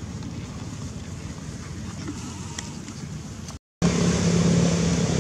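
Low, rumbling outdoor background noise, likely wind on the microphone. It breaks off in a short dead gap about three and a half seconds in, then comes back louder with a steady low hum.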